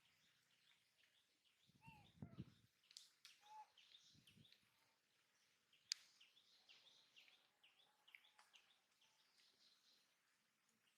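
Faint outdoor ambience with many small, high bird chirps scattered throughout, a few soft low thumps about two and four seconds in, and one sharp click near the middle.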